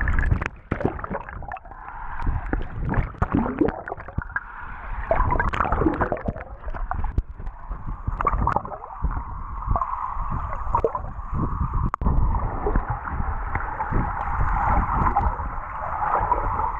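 Water rushing, sloshing and gurgling, heard muffled with little high end, over a steady low rumble and scattered knocks.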